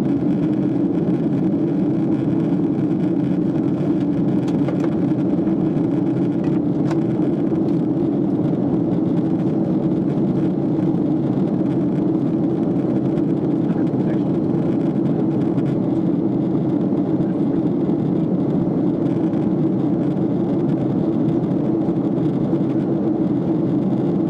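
Steady drone of a Boeing 767 airliner in flight, heard inside the passenger cabin: engine and airflow noise at an even level, deep and without change.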